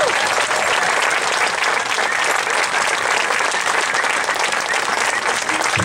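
Crowd applauding: steady, dense clapping from many people.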